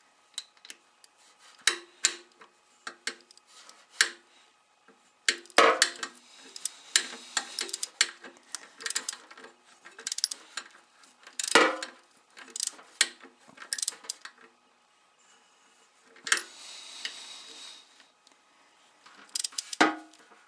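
Metal hand tools and engine parts clicking and clinking during reassembly of a motorcycle engine, in irregular bursts with several sharp knocks and a brief hiss near the middle.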